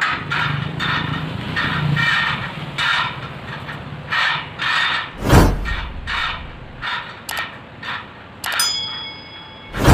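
Steel bars and decorative collars clinking and knocking as they are handled on a steel gate frame, in a run of short clatters. About halfway through and again at the very end comes a heavy thump. About eight and a half seconds in, a piece of metal is struck and rings clearly for a moment.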